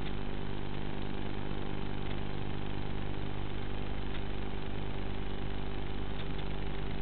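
Steady buzzing hum from the onboard audio of an FPV flying wing's camera feed, made of several evenly spaced tones that hold one pitch throughout.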